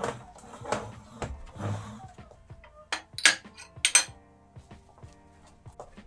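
Kitchenware being handled, with rustling at first and then a few sharp clinks about three and four seconds in. Soft background music runs underneath.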